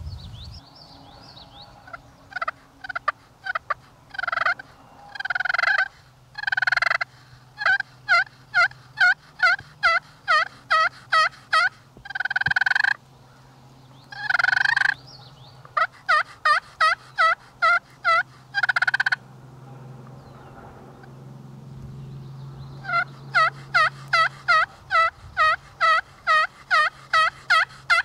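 Turkey yelping: runs of short two-note yelps at about three a second, in three long series, with a few longer drawn-out notes in the first half.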